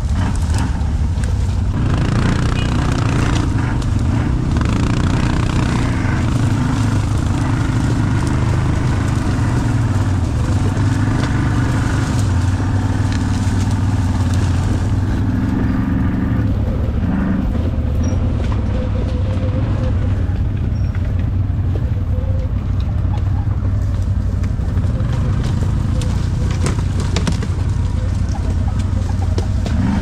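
ATV engine running with a steady low drone, under a rushing noise and scattered knocks.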